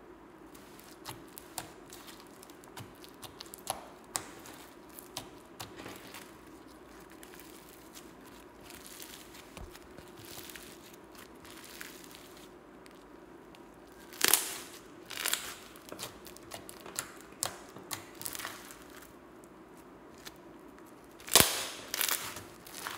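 Slime being worked by hand, giving sticky crackles, small pops and crinkly tearing sounds, with louder bursts about 14 and 21 seconds in.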